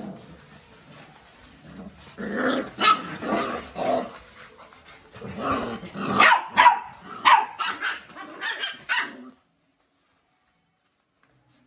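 Bhotiya and Labrador puppies barking and yipping as they play-fight. A run of short, loud barks starts about two seconds in and stops abruptly.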